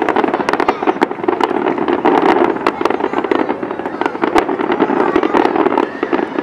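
Fireworks display in full barrage: many shells bursting in quick succession, a dense rapid string of bangs and crackling.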